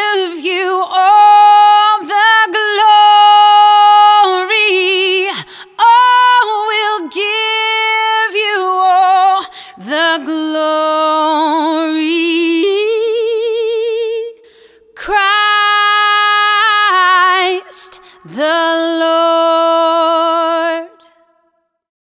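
A woman singing unaccompanied, phrase by phrase, holding long notes with a wide vibrato; the voice stops about 21 seconds in.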